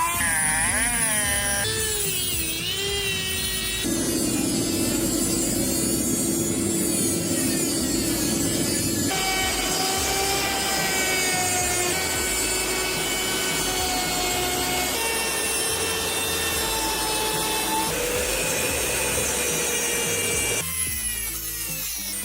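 Power tools cutting and grinding a forged steel blade, heard in a run of short edited clips: a harsh rasping noise with a steady whine whose pitch jumps suddenly every few seconds.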